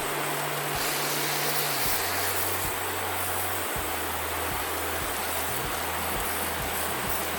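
Background music with slow-changing low bass notes over a steady rushing hiss.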